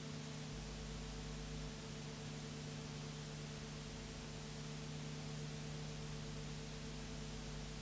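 Steady hiss with a low electrical hum and no scene sound: the noise floor of a silent film transfer.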